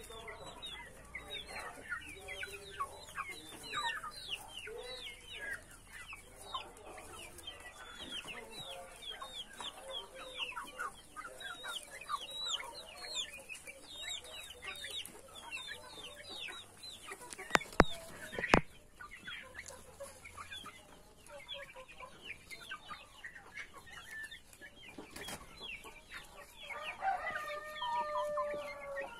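A flock of Brahma chickens clucking and calling, with many short, falling high-pitched calls throughout. Two sharp knocks stand out a little after two thirds of the way through, and a rooster crows near the end.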